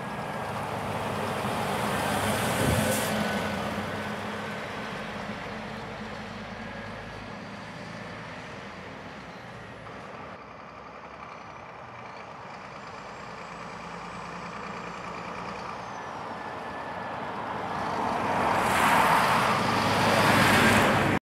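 Scania R400 hooklift truck's diesel engine and tyres as it drives past on the road. The sound swells to a peak about three seconds in and fades, then rises again as the truck passes close near the end and cuts off abruptly.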